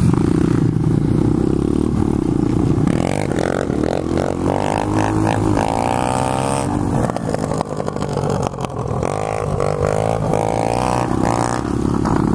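2015 SSR 125cc pit bike's single-cylinder four-stroke engine running as it is ridden, the revs rising and falling repeatedly, with other pit bike engines running close by.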